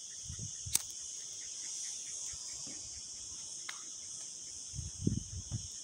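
A steady, high-pitched chorus of insects chirring, with a sharp click just under a second in and a few soft low thuds near the end.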